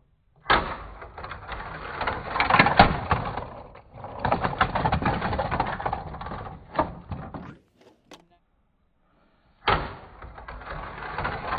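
Die-cast toy cars rattling on a plastic race track, a noisy clatter with sharp clicks and knocks that cuts out for about two seconds near the middle and then starts again.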